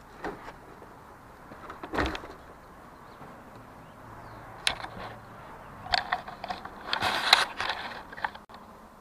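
Handling noises of a large RC monster truck being moved about on a plastic table: a thump about two seconds in, then a run of clicks, knocks and scraping from about six to eight seconds in.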